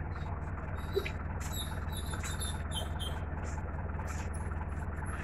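High-pitched chirps and squeaks, clustered about one and a half to three seconds in, over a steady low motor hum.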